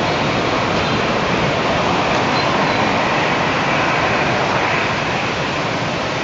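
Twin-engine jet airliner on the runway: the steady rushing noise of its engines, without break.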